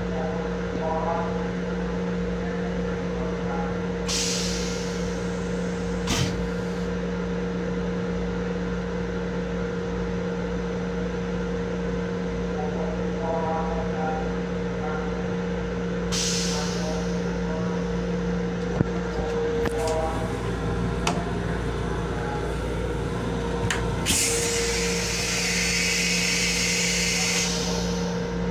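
Steady hum and drone of a Long Island Rail Road M7 electric railcar, heard inside its small restroom. Short bursts of hissing air come about four seconds in and again about sixteen seconds in, and a longer hiss lasts several seconds near the end.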